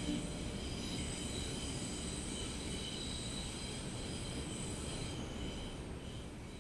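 Train running with a low rumble and faint, steady high-pitched wheel squeal, fading out near the end.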